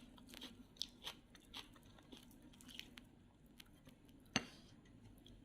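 Faint chewing and small clicks of a person eating, with one sharper click about four seconds in.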